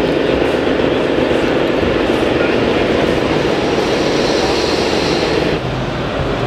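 Steady din of a crowded exhibition hall, many voices mixed with the running of a radio-controlled model truck. The sound drops and changes abruptly at an edit about five and a half seconds in.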